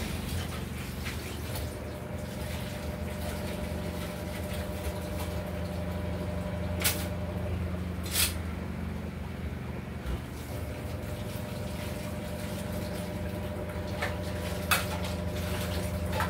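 Washing dishes by hand at a kitchen sink: a steady rush of tap water with a few sharp clinks of dishware, two of them about seven and eight seconds in.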